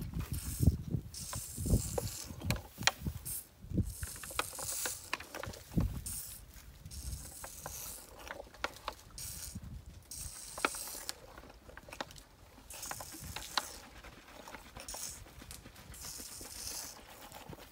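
African elephant calf gulping milk from a bottle held up in her trunk: irregular clicks and short hisses, with heavier low thumps in the first few seconds.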